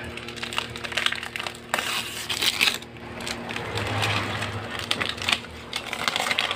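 Crumpled strips of an LCD TV's broken polarizer film being handled and peeled off the panel by hand: irregular plastic crinkling and crackling.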